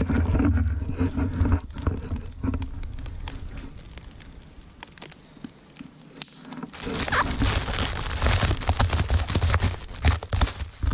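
Bubble wrap crinkling and rustling as a wrapped exhaust muffler is handled, with low bumps at the start. It goes quieter for a few seconds in the middle, then busier crinkling with small crackles returns at about seven seconds in.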